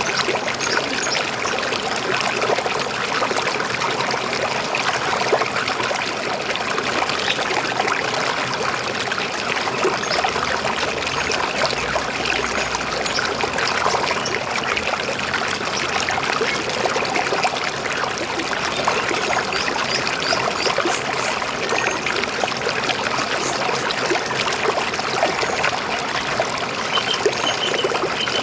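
River water flowing and trickling over stones, a steady babbling with no pauses.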